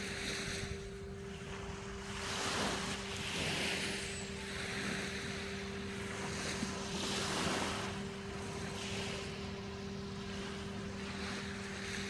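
Small waves washing onto a sandy beach, the surf swelling and easing in irregular surges, over a steady low hum.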